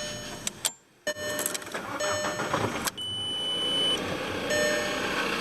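Car engine, plausibly the Volkswagen Jetta A4, starting and then running, with an electronic chime beeping on and off. There is a brief drop-out about a second in.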